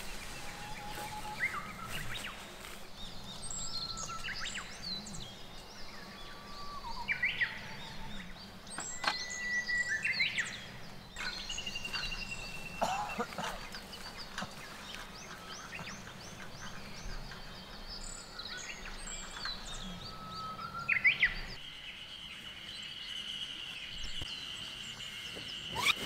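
Wild birds singing and calling: many short chirps, whistles and sliding notes from several birds. In the last few seconds a steady high-pitched tone joins them.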